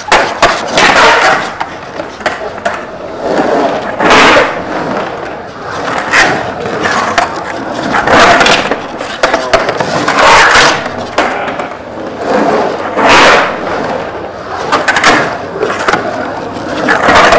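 Skateboard wheels rolling and carving through an empty concrete swimming pool, the rolling noise swelling and fading every couple of seconds as the skater rides up and down the walls, with a few sharp clacks of the board.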